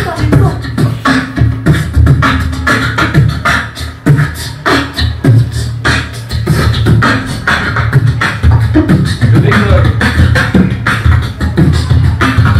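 A boy beatboxing into a handheld microphone: a fast, steady rhythm of mouth-made drum hits and clicks, with a low hum held underneath.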